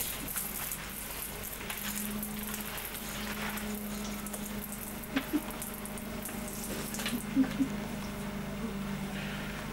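Steady crackly background hiss with a low, even hum, and a few faint short sounds about five and seven seconds in.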